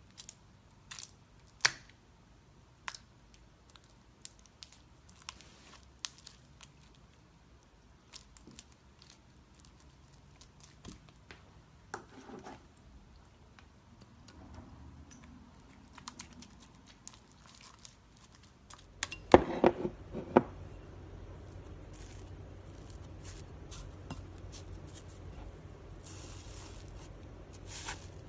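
Slime being handled, giving scattered sticky pops, clicks and tearing sounds, with the loudest cluster of pops about two-thirds of the way in. A low steady hum comes in at about the same point.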